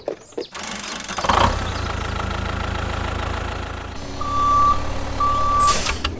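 Engine sound effect of a tractor running steadily as it reverses, with two reversing beeps of about half a second each in the second half and a short hiss just before the end.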